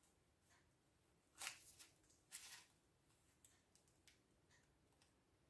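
Near silence broken by a few faint, brief scrapes, the clearest about a second and a half in and another just after two seconds, as a cake is slid into place on a serving plate.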